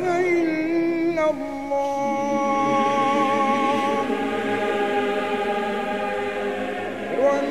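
Choral singing: a voice with a wavering vibrato gives way about a second in to several voices holding long, steady notes together.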